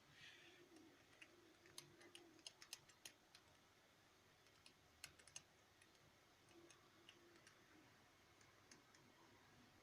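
Faint, irregular clicks and taps, about a dozen in a quick cluster early on and a few more about halfway through, over near silence.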